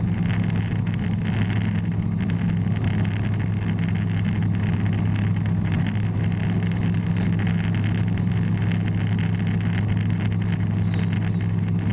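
Bristell light aircraft's piston engine and propeller running in a steady drone at constant power, as in level cruise.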